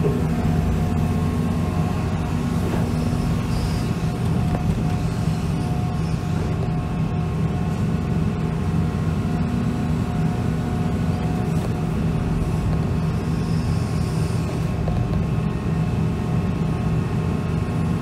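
Hitachi 350 long-reach excavator's diesel engine running steadily with its hydraulics, heard from inside the cab while the arm is worked: an even, unbroken engine hum with a faint steady whine above it.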